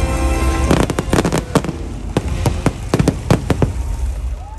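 Aerial fireworks shells bursting in a rapid string of sharp bangs and crackles for about three seconds, starting under a second in, over the show's music soundtrack.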